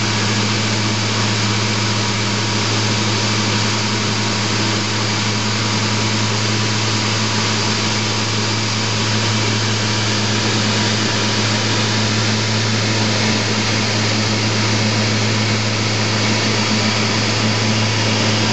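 Steady drone of a sightseeing aircraft's engine and airflow heard from inside the cabin: a constant low hum over a rushing noise, unchanging throughout.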